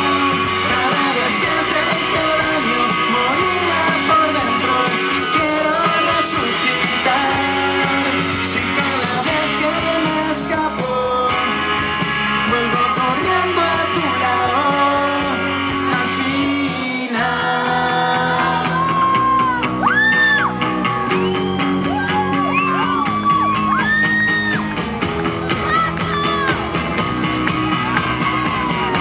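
Live rock band playing with electric guitars, bass and drums, with singing over the top. About 17 seconds in, a high lead line of notes that slide up, hold and fall away rises above the band.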